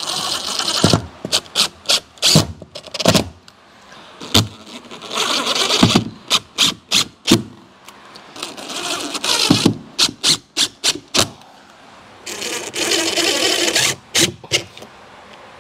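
Cordless drill driving screws to fix shelf-support brackets under a countertop, in about four short runs. Sharp clicks and knocks fall between the runs.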